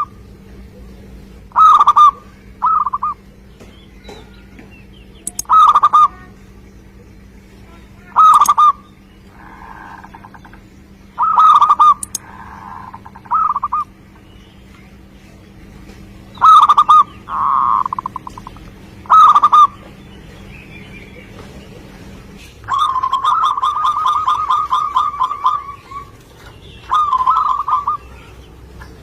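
Zebra dove (perkutut) calling: short, loud cooing phrases every two to three seconds with softer coos between them, then a longer rolling trill of about three seconds near the end.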